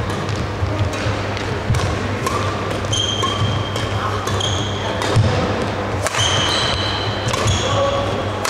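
Badminton doubles rally: sharp racket strikes on the shuttlecock about once a second, and short squeaks of shoes on the court floor. A steady low hum runs underneath.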